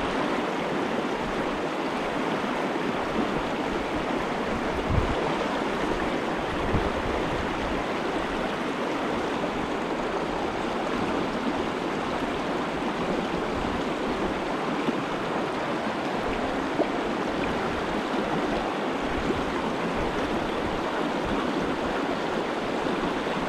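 Mountain stream water rushing steadily, an even hiss with no change in level. A soft low knock about five seconds in.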